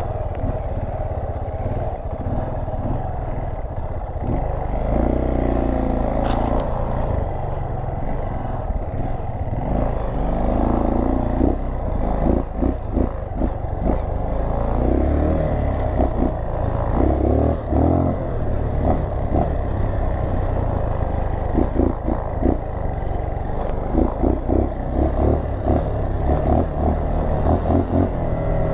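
Dual-sport motorcycle engine running steadily while being ridden along a rough sandy dirt trail. From about twelve seconds in, frequent rattles and knocks from the bike jolting over the bumps join the engine.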